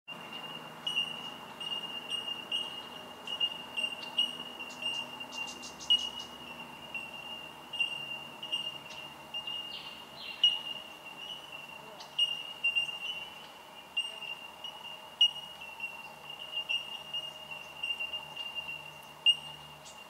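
A colony of bell miners (bellbirds) calling: many high, single-pitched 'tink' notes repeating and overlapping into a continuous chime-like ringing.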